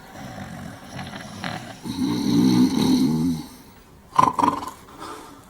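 Two men snoring loudly in their sleep, a long rasping snore swelling to its loudest about two seconds in. Two short, sharp sounds follow about four seconds in.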